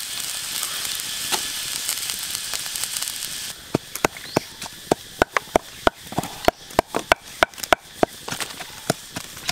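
Water in a hot wok of mussels and duck eggs sizzling with a steady hiss. After a cut about three and a half seconds in, there are sharp, irregular crackles and pops from the wood fire under the pan, about two or three a second.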